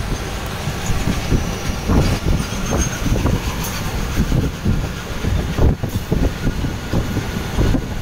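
Train wheels running on rails as two trains move side by side, one of them a rake of open freight wagons: a loud, steady rumble broken by frequent irregular knocks.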